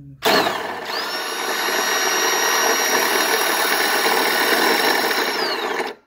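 Electric piston-ring filer running, its abrasive wheel grinding the end gap of a hardened piston ring. A steady motor whine and grinding noise start abruptly, and the whine falls as the motor spins down near the end.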